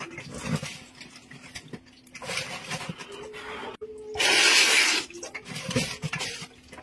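A person slurping noodles from a pot: a shorter slurp about two seconds in, then a long loud slurp lasting nearly a second around the four-second mark, with wet chewing sounds between.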